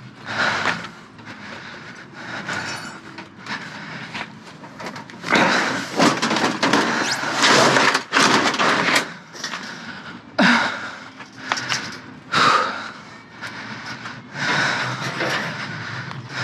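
Junk being handled and moved: repeated clattering, scraping and knocking, busiest about five to nine seconds in, with single sharp bangs about ten and a half and twelve and a half seconds in.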